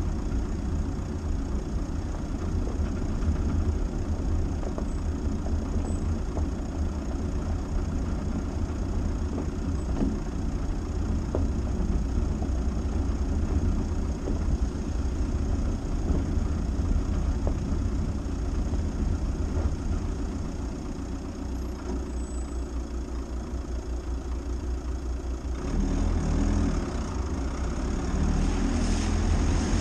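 A 2018 Dacia Duster driving slowly off-road: a steady low engine and drivetrain rumble with rough-ground noise, easing a little about two-thirds through and picking up again near the end.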